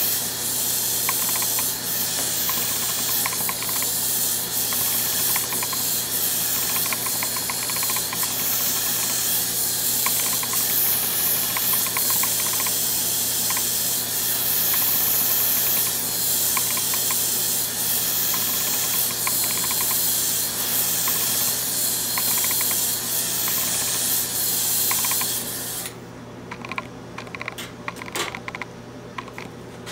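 Glassworking hand torch hissing steadily as its flame heats the joint while an electrode is welded onto neon tubing, with light clicking through it. The hiss cuts off suddenly about four seconds before the end, leaving only faint scattered clicks.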